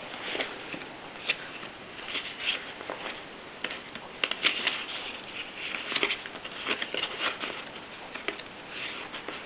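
Rheinmetall manual typewriter being typed on: irregular sharp clacks of the typebars striking, coming in quick uneven runs of several keys with short pauses between.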